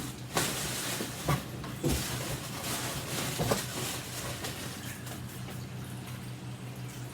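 Handling noises from unpacking the vacuum's parts: a few short knocks and rustles in the first few seconds, over a steady low hum.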